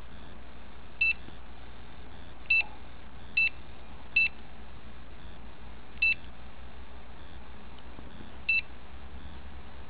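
Handheld RF radiation meter giving six short high-pitched electronic beeps at uneven intervals.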